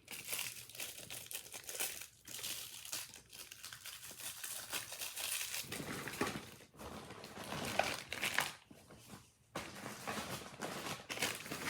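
Irregular crinkling and rustling as the contents of a go bag pocket are rummaged through and handled, stopping briefly a few times.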